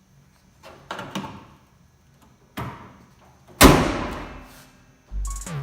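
A few light knocks and clatter, then one loud slam about three and a half seconds in that rings away over about a second, with a low rumble starting near the end.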